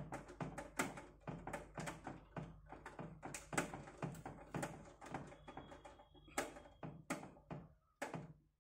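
Quick irregular clicks and taps of a screwdriver driving a screw that holds a graphics card's bracket to a PC case, about three or four a second over a low hum, stopping near the end.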